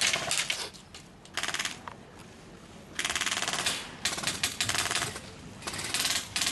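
Airsoft electric rifle firing full-auto in short bursts, a rapid even chatter of shots; a burst at the start and one about 1.5 s in, a lull, then several bursts from about 3 s on.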